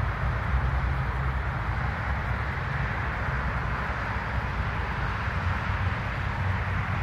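Boeing 737 MAX 8's CFM LEAP-1B turbofan engines at departure power: a steady, deep jet roar with a rushing hiss above it.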